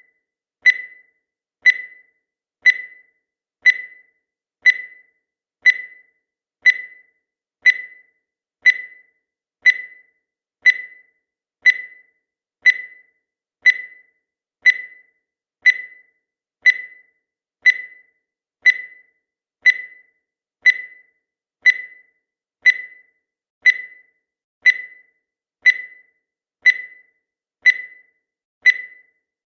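Countdown timer sound effect: a short, sharp beep-like tick about once a second, marking off each second of the countdown.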